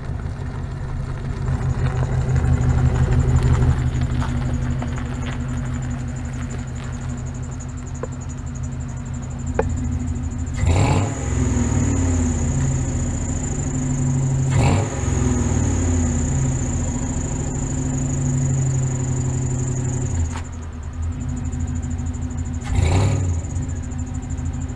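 LS1 V8 in a 1967 Chevrolet C10 pickup running as the truck pulls away, louder in the first few seconds, then, after several abrupt cuts, idling steadily.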